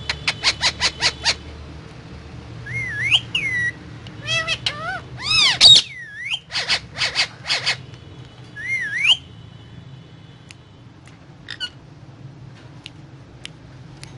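Indian ringneck parakeet calling: two quick runs of about seven sharp chirps, with several swooping whistles between them, then a few faint clicks near the end.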